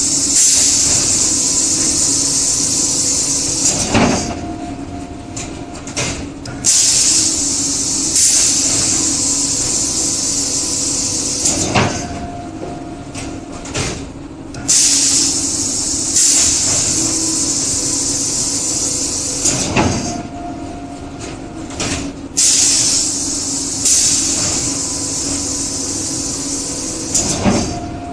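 Pneumatic vacuum suction loader for a plywood sanding machine cycling. A loud air hiss lasts about five seconds and ends in a sharp clack. This repeats about every eight seconds, four times, over a steady machine hum.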